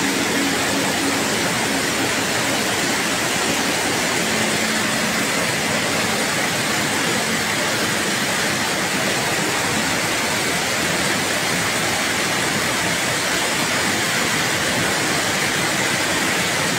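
Flash-flood torrent of muddy water rushing down a steep street, a steady, unbroken rush of water.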